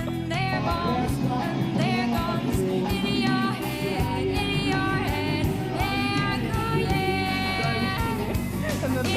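Background pop-rock song with a female singer, guitar and drums with a steady beat.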